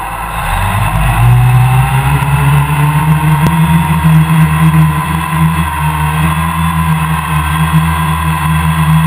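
Electric motors and propellers of a homemade quadcopter, heard from a camera mounted on its frame: they spin up over the first second or two, then run at a steady pitched whine over a low hum.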